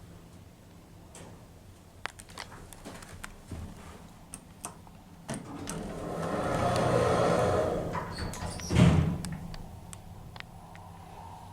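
Otis Gen 2 lift's automatic doors sliding, ending in a loud thump about nine seconds in, after a few seconds of light clicks.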